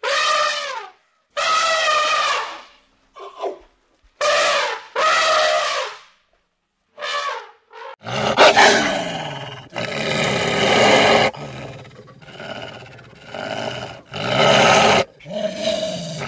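Animal calls: a series of loud, pitched calls, each about a second long, with silent gaps between them. About eight seconds in they give way to a denser, continuous run of overlapping calls.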